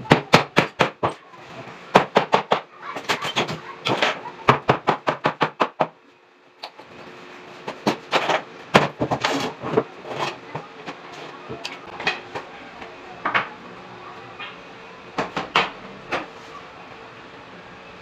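Hammer blows on a wooden wardrobe cabinet, first in fast runs of about five strikes a second, then breaking off about six seconds in. After that come scattered, sparser knocks and taps on the wood.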